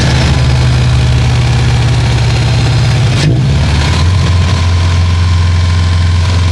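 Subaru WRX STI's turbocharged flat-four engine running steadily. About three seconds in there is a brief break in its sound, after which it settles at a lower, steady pitch.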